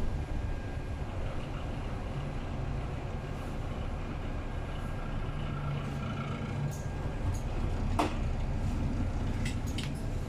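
Ride noise inside a bus on the move: a steady low engine rumble and road noise. A sharp click about eight seconds in, and a few lighter ticks near the end.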